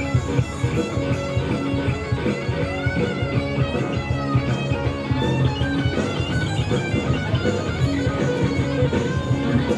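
A hard-rock band playing live: an electric guitar plays a lead line full of bent, gliding notes over bass guitar and drums.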